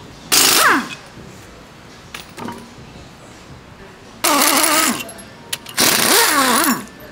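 Cordless impact wrench running in three short bursts: one of about half a second with a falling pitch, then two of about a second each, its motor pitch wavering.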